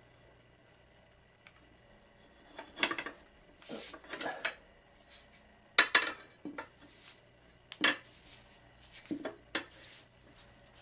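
Mini tire changer's steel bar clanking and scraping against a small mower wheel's steel rim and the changer's post as the tire bead is levered over the rim: a string of irregular metallic clinks and clanks, the loudest about six seconds in.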